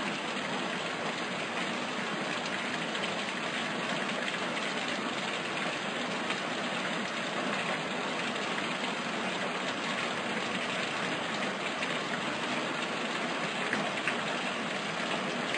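A steady, even hiss like rain, unchanging throughout.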